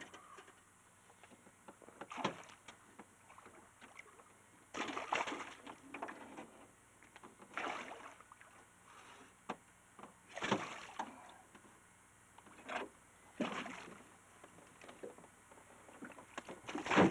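Water sloshing and splashing around a small fishing boat in irregular bursts every two to three seconds, with a few light knocks.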